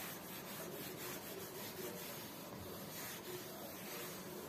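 Hand-held whiteboard eraser being wiped across a whiteboard, a faint steady rubbing as the marker writing is cleared.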